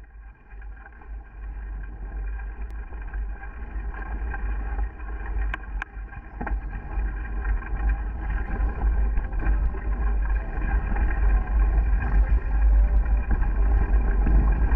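A vehicle under way with a steady motor hum, several even tones holding level, under heavy wind buffeting on the microphone. It grows louder over the first few seconds, with a few brief clicks around the middle.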